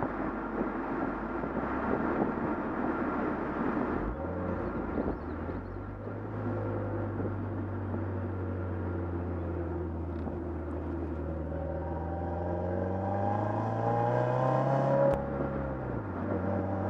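2015 Subaru WRX's turbocharged flat-four heard at the exhaust: wind and road noise over the engine at first, then a steady drone from about four seconds in. Near the end the pitch rises as the car accelerates, drops sharply at an upshift, and the engine pulls on.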